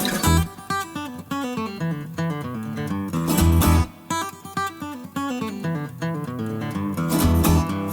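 Background music led by acoustic guitar, plucked and strummed melodic runs over a beat.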